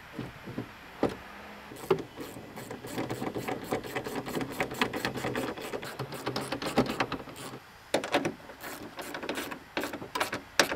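Rapid clicking and rattling of a small hand tool and plastic parts as the rebuilt pop-up headlight assembly is fastened back into its housing. The clicking runs dense for several seconds, then comes in sparser single clicks near the end.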